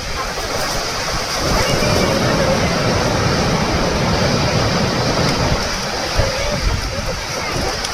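Waterfall water pouring and splashing: a loud, steady rush.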